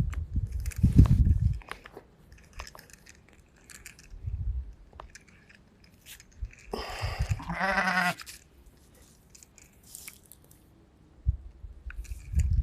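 A single long, wavering bleat from livestock, about seven seconds in. Dull low rumbling noises come in the first couple of seconds, briefly around four seconds, and again near the end.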